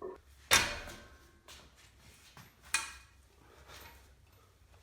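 Weights being handled: a few sharp knocks and clanks. The loudest comes about half a second in and dies away quickly, with another clear knock near three seconds and fainter ones in between.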